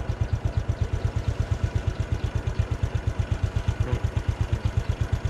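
A small engine idling close by, a rapid, even low chugging.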